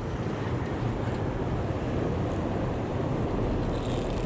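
Steady rushing noise of fast water in a dam's tailwater, with wind on the microphone.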